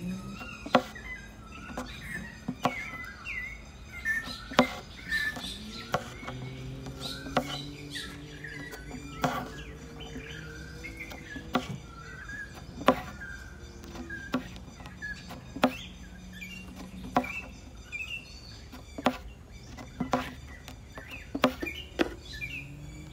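Embroidery needle punching through thin canvas stretched taut in a wooden hoop, making sharp clicks about once a second as the stitches go in. Birds chirp in the background.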